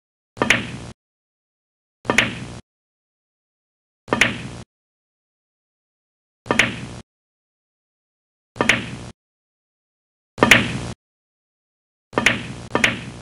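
Animation sound effect of a pool ball knocking against the table cushion, repeated about every two seconds. Each knock is a sharp click with a short ringing tail that cuts off abruptly, and the last two come close together.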